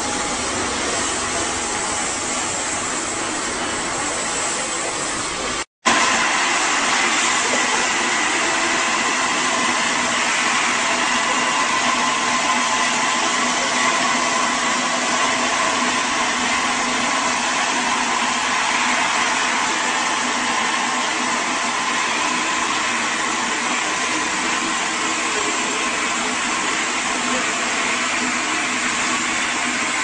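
Electric motors and circular saws of an aerated-concrete cutting line running steadily through a gas-concrete block: a dense, hissing cutting noise with a constant whine. The sound breaks off for an instant about six seconds in, then carries on slightly louder.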